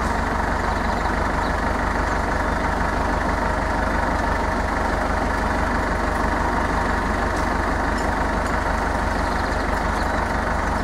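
Farm tractor engine idling steadily, an even low-pitched running with a fine regular pulse and no revving.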